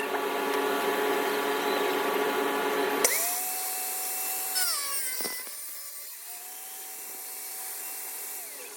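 Electric grinder motor running with a steady whine, then switched on briefly twice, its whine rising as it spins up and falling as it winds down.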